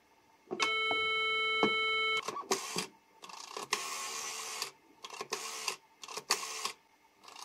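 1958 RWT CB-49 Bakelite rotary telephone with the handset off the hook: a steady, buzzy dial tone sounds from the earpiece for about a second and a half and stops when dialling begins. Then several digits are dialled, each one a short whirring, clicking run as the rotary dial turns and spins back.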